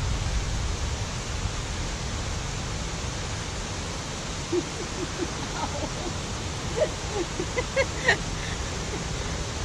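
Steady rushing noise, with a scatter of short scrapes and knocks in the second half, the loudest just after 8 s, as a person clambers up the stone wall of an old well.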